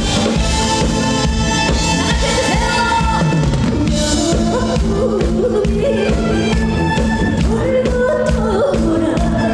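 Korean trot song performed live: a woman singing over backing music with a steady drum beat.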